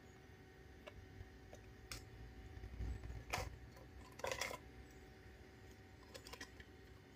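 Hard plastic RC car parts clicking and clattering as they are handled and fitted together: a few scattered clicks, the loudest one about three and a half seconds in and a short clatter just after four seconds, over a faint steady hum.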